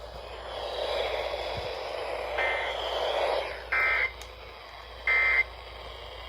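Three short, harsh data bursts of the Emergency Alert System SAME end-of-message code from a weather radio, about a second and a half apart, over radio hiss. They mark the end of the flash flood warning broadcast.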